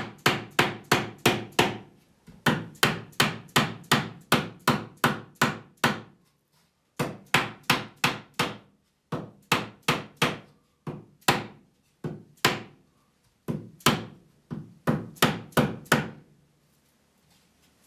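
Wooden comb of a comb-back Windsor chair being struck repeatedly to drive it down onto the tops of its spindles. Sharp blows come about three a second in runs of several strokes, with short pauses between the runs.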